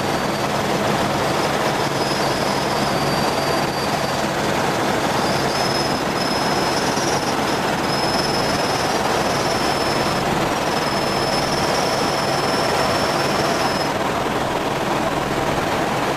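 Helicopter in flight: steady loud engine and rotor noise, with a high whine that fades out and back in a few times.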